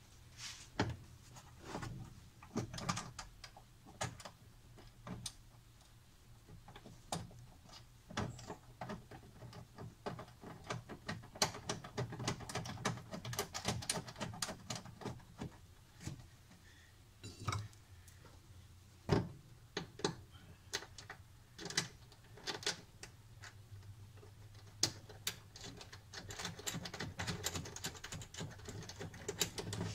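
A black cover panel in a car's front trunk being handled and fitted back in place. It gives irregular clicks, taps and knocks with some rustling.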